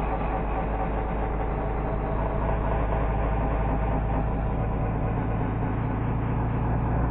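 Honda CBR600F4i sport bike's inline-four engine and road noise, slowed down with the footage into a low, steady drone.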